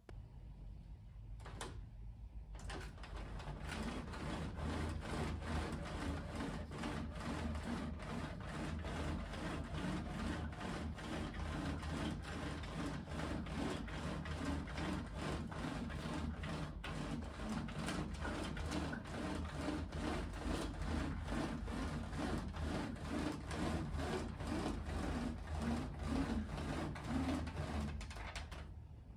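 Wooden venetian blinds being raised by pulling the lift cord: a continuous run of wooden slat clatter and cord rubbing through the headrail, after a single click about a second and a half in. It stops just before the end.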